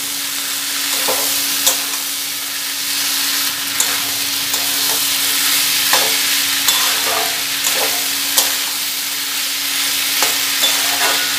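Boiled kabuli chickpeas and diced potatoes sizzling in spiced oil in a metal kadai as a metal spatula stirs them, scraping and tapping against the pan at irregular moments. A steady low hum runs underneath.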